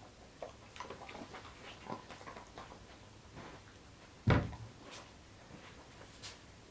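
A dog moving about on a rug, its paws and body making light scuffs and rustles, with one heavy thump about four seconds in and a couple of small clicks after it.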